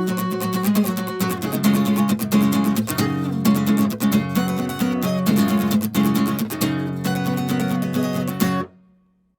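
Acoustic guitar strumming chords in a steady rhythm, closing out a song; the strumming stops abruptly about a second before the end, leaving a brief fading ring and then silence.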